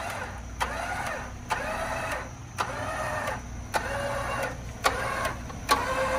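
A 12,000-lb electric winch on a Jeep's front bumper, pulled in short bursts of about a second: each starts with a click and its motor whine rises and then sags as it strains under heavy load. The Jeep's engine idles steadily underneath.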